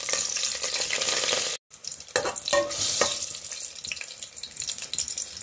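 Garlic and scallion sizzling in hot oil in an aluminium pressure-cooker pot while a spoon stirs them, with a few knocks of the spoon against the pot about two to three seconds in. The sizzle cuts out for a moment about a second and a half in.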